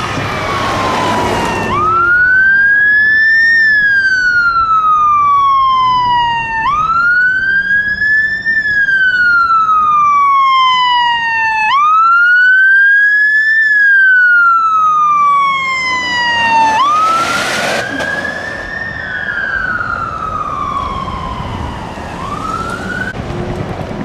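Electronic siren of a fire department emergency vehicle sounding the wail: a tone that climbs quickly and sinks slowly, repeating about every five seconds, four full cycles. A brief loud burst of hiss cuts in about seventeen seconds in, and the siren grows a little fainter after it.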